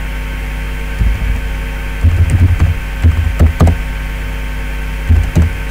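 Computer keyboard being typed on, the keystrokes picked up mostly as dull low thumps in quick clusters, over a steady electrical hum.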